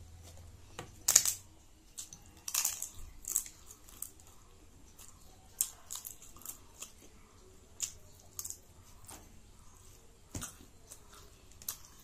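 A person chewing and biting crunchy food close to the microphone: irregular crisp crunches, the loudest about a second in and again around two and a half to three and a half seconds, then softer scattered chewing sounds.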